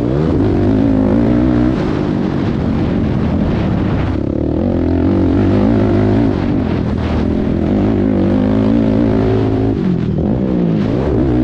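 Race quad's engine running hard, its pitch climbing and falling as the rider accelerates and lets off, with clear drops about four seconds in and again near the end.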